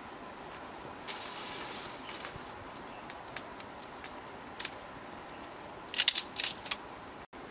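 Dry sticks and leaves rustling and snapping as a small wood fire is tended with a stick. There is a rustle about a second in, scattered clicks, and a burst of sharp cracks about six seconds in.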